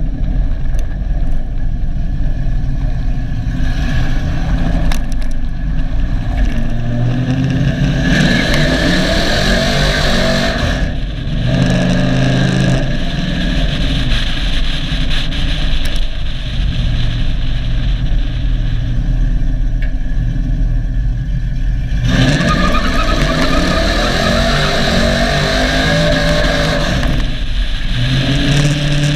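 Cammed 5.3-litre V8 of a GMC Sierra pickup accelerating hard, revving up through the gears: the engine note climbs and drops at each upshift, with a stretch of steadier running in the middle.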